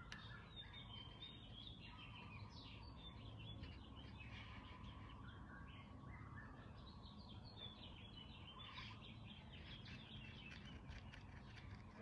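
Small songbirds chirping and singing in many short, overlapping calls, faint over a low steady hum.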